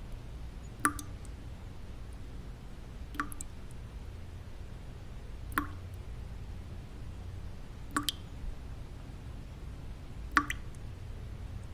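Single water drops falling into water at an even, slow pace, five drips about two and a half seconds apart. Each drip is a short plink that rises in pitch. Under the drips runs a steady low white-noise bed.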